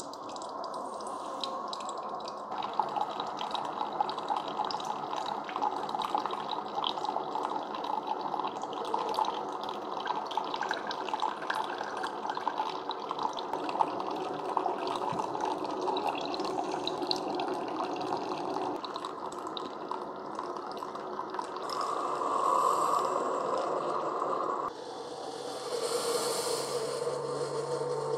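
Single-serve coffee makers brewing: a stream of hot coffee pours and splashes into a glass mug over the machine's running pump. About 25 seconds in, the sound changes and a steady low hum comes in.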